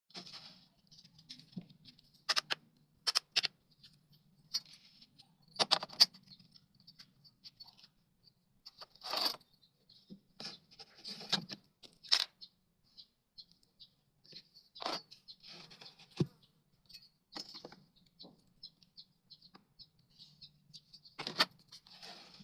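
Light clicks and taps of small tools and pieces of wood being handled and set down, a dozen or so at irregular intervals, over a faint low hum.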